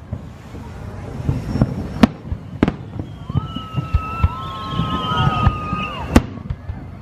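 Aerial fireworks bursting: a sharp bang about two seconds in, another just after, and a loud one near the end, over a continuous low rumble and crackle of further bursts. Two long, high whistles overlap through the middle.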